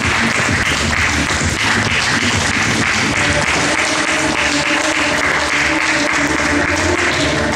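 Audience applauding steadily, with background music fading in faintly about halfway through.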